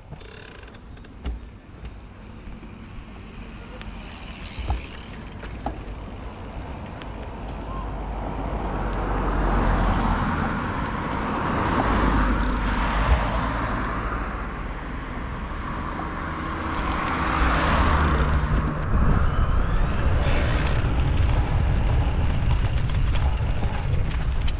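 Mountain bike riding sound picked up by a bike-mounted or helmet-mounted action camera: tyre rumble and wind rush that swell and fade with speed, with a few knocks in the first seconds.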